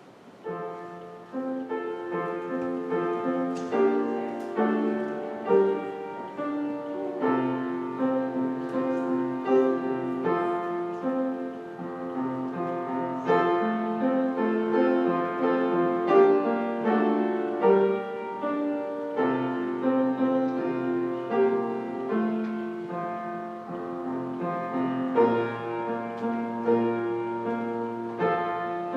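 Solo piano music that starts about a second in, with chords and a melody line.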